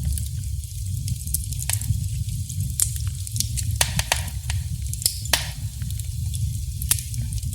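Wood fire crackling: irregular sharp pops and snaps over a steady low rumble, with a couple of brief hisses about four and five seconds in.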